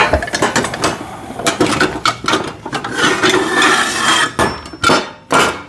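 Steel welding-table parts being handled and knocked together: a continuous run of sharp metallic clinks, knocks and rattles, loudest near the end.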